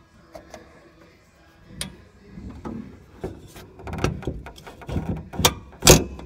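Knocks, bumps and scrapes of the camera being handled and moved, growing louder and more frequent after about two seconds, with the loudest knock near the end.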